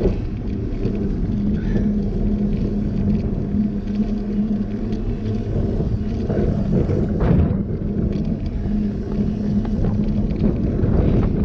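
Knobby mountain-bike tyre rolling on an asphalt path, giving a steady hum that fades near the end. Under it is a low rumble of wind buffeting the action camera's microphone.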